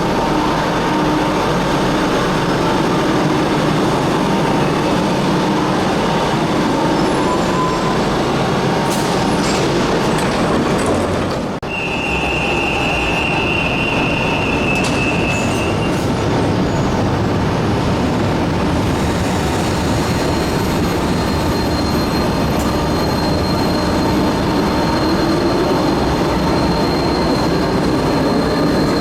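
Passenger train running through a station: a loud, steady rumble of wheels and motors. It breaks off sharply about twelve seconds in, and right after that a high steady tone sounds for about four seconds.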